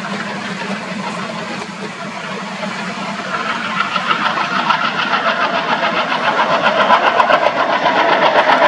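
Twin ALCo WDM-3A diesel locomotives with 16-cylinder engines chugging as they haul a long passenger train, heard from a distance. The sound grows louder from about three seconds in, with a regular beat and clicking towards the end as the coaches roll past.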